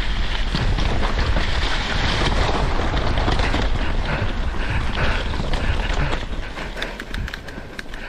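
Wind buffeting the microphone over the rumble and crunch of mountain bike tyres rolling down a rocky, gravelly trail. About six seconds in the rush eases and a run of sharp clicks and rattles from stones and the bike comes through.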